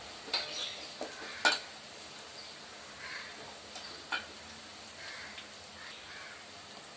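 Hot oil sizzling around sliced onions fried light golden brown as a steel ladle scoops them out of a metal pot, with a few sharp clinks of the ladle against the pot, the loudest about one and a half seconds in.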